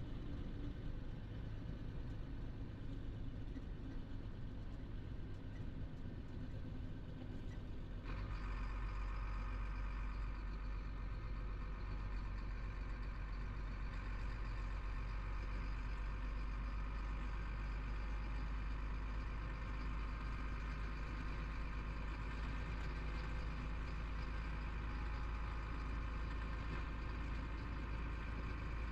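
Diesel engine and road noise of a Chenglong heavy truck heard from inside its cab while driving: a steady drone that grows louder and fuller about eight seconds in.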